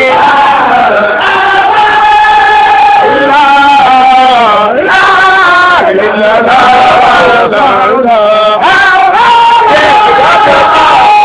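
Voices chanting a Sufi zikr (dhikr) of the kind sung by Baye Fall disciples. The melody holds long notes and slides between pitches, with no break.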